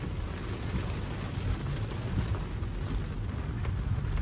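Heavy rain falling on a Tesla Model 3's roof and windshield, heard from inside the cabin as a steady hiss of fine pattering drops over a low, even rumble.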